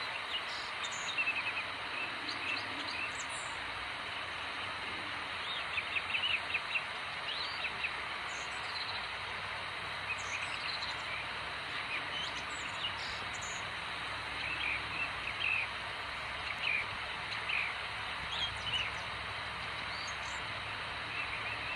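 Small birds chirping in scattered clusters of short, high chirps over a steady outdoor hiss.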